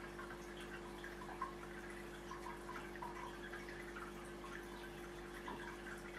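Aquarium filter running: water trickling in small irregular drips over a steady hum.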